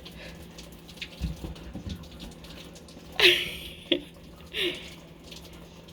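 Running water hissing steadily, with three short squeaky sounds falling in pitch about halfway through.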